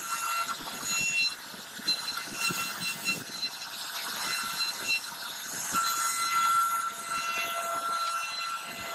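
CNC router spindle running with a high whine while its V-bit cuts a floral relief into a wooden board, with the rough crackle of the bit in the wood. The whine's tones come and go, one holding louder through the second half.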